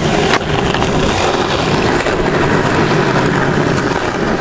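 Skateboard wheels rolling over rough asphalt in a steady rumble, with one sharp clack of the board about a third of a second in.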